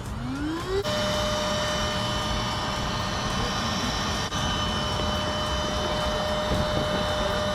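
Shark2S rechargeable electric inflation pump starting up, its motor pitch rising over the first second, then running at a steady high whine as it inflates an inflatable kayak's air chamber.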